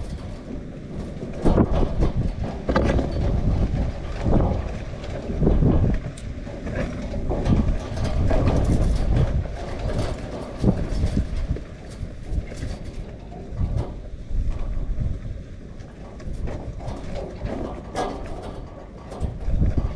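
Strong typhoon wind gusting across the microphone, a deep rumble that swells and drops every few seconds, with scattered knocks and rattles.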